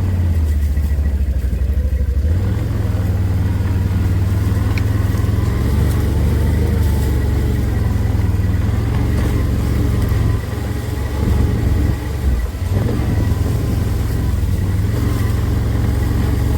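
Engine of a small ridden vehicle running steadily with a low drone, easing off briefly about ten seconds in and then picking up again.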